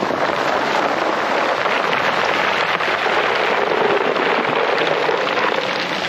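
Sea surf washing onto the beach: a steady, even hiss of breaking waves.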